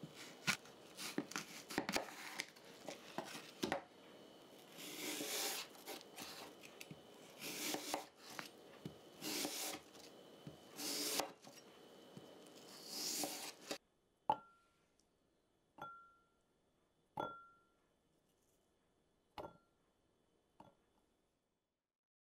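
Kitchen knife cutting a crisp apple on a wooden cutting board: repeated crunching slices and knocks of the blade on the board. After the cutting stops, five separate light clinks, each with a short ring.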